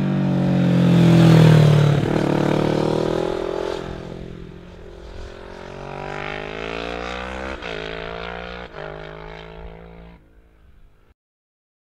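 Kawasaki Ninja 650's parallel-twin engine as the bike rides past, loudest about a second and a half in, its pitch dropping as it goes by. Then, farther off, it accelerates with a rising note broken twice by short gaps like upshifts, before fading out and cutting to silence near the end.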